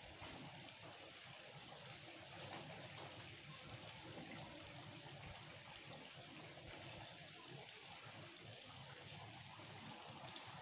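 Faint steady hiss with no distinct events, close to near silence.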